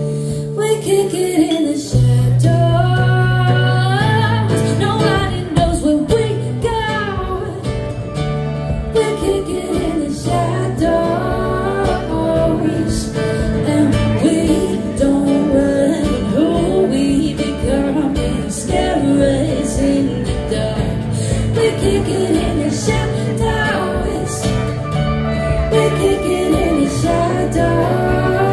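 Live band playing a song on acoustic guitar, electric guitar and electric bass, with a woman singing. The full band comes in louder about two seconds in.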